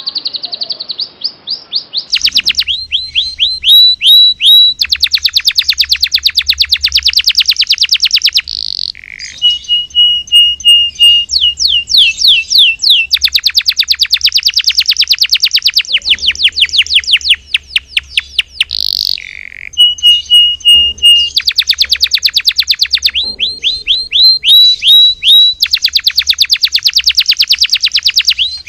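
Domestic canary singing loudly and without pause. The song alternates long, fast trills of rapidly repeated notes with stretches of clear whistled notes held at one pitch and quick swooping notes.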